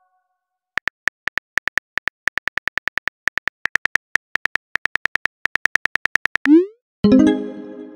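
Simulated smartphone keyboard tap sounds from a texting-story app, a quick run of clicks at about seven a second as a message is typed. A short rising swoosh near the end marks the message being sent, followed by a ringing chime.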